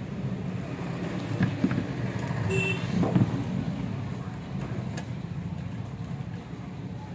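Steady low hum under a few short knocks and clicks from the metal amplifier casing being handled and a screwdriver worked at its screws; the loudest knocks come about one and a half and three seconds in.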